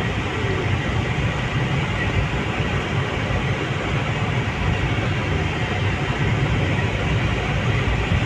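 Steady low rumble of a car's engine and tyres heard from inside the cabin as it drives slowly, with an even hiss over it.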